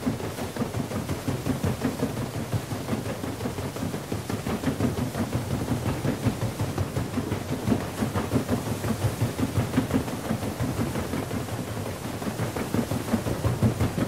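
Paddle steamer's paddle wheels thrashing the water, a steady churning with a fast, regular beat of about four strokes a second.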